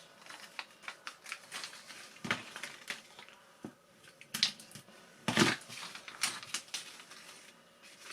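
Small plastic and metal parts of an electric ducted fan unit clicking and knocking as they are handled and fitted together by hand, in irregular taps with a few louder knocks about two, four and five seconds in.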